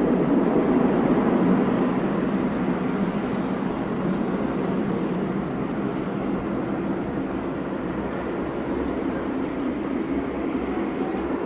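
Airbus A320-200's jet engines running at low thrust as it taxis onto the runway to line up: a steady rumble that eases slightly over the first few seconds. A constant high-pitched insect trill, crickets, sounds throughout.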